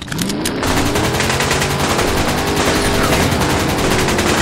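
Loud automatic gunfire sound effects: a few single shots, then a continuous rapid burst of machine-gun fire starting about half a second in.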